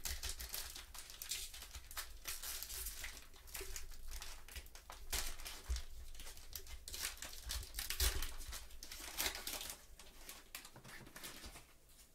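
Foil wrapper of a Panini Illusions basketball card pack crinkling and crackling as gloved hands tear it open, with a run of sharp crackles and tearing sounds that die down near the end.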